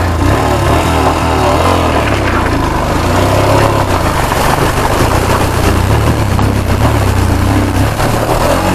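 Royal Enfield Himalayan's 411 cc single-cylinder engine running as the motorcycle rides through a shallow river crossing, with water splashing up near the end.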